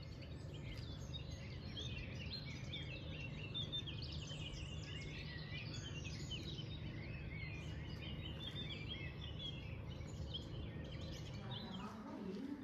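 A dense chorus of small birds chirping and twittering, many short calls overlapping, over a steady low hum.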